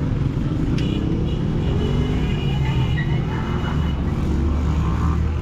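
A motor vehicle's engine running close by, rising in pitch over the first two seconds, over street noise. A sharp click comes about a second in, followed by a high steady tone lasting a few seconds.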